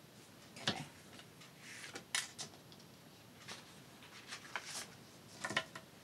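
A handful of light clicks and taps of a pen and paper being handled and set down on a craft mat, sharpest under a second in, about two seconds in and near the end.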